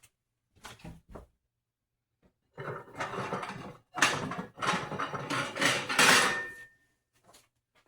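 A knife cutting a slice from a loaf of bread on a wooden cutting board: a few light taps, then about four seconds of scraping, sawing strokes in three stretches.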